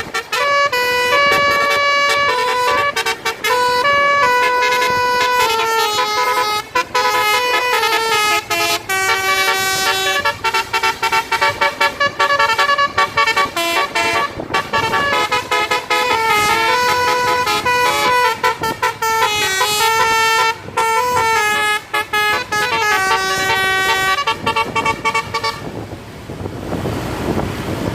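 Basuri musical bus horn (telolet) playing a quick melody of stepped horn notes, changing pitch every fraction of a second with short breaks. The tune stops near the end, leaving a rushing noise.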